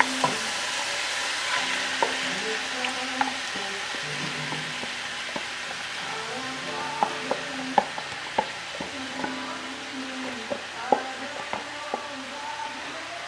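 Ground chicken sizzling in a hot pan while whole-kernel and cream-style corn are poured in and scraped from a plastic tub with a spatula. The sizzle is strongest at first, with scattered sharp clicks and taps of the spatula against the pan and tub.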